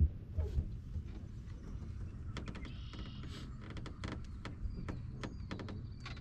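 A run of sharp clicks and light knocks, many in quick succession from about two seconds in, over a steady low rumble: gear being handled in a boat.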